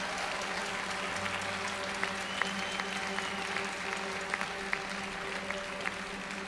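Audience noise with scattered claps, over a few steady held tones and a low drone.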